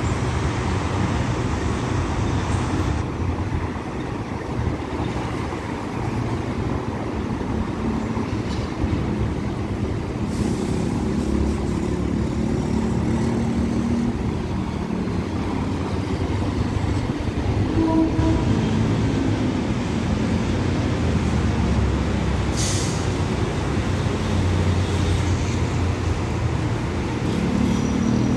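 SRT Red Line electric commuter train running along the tracks, a steady noise strongest at the low end, with road traffic behind it.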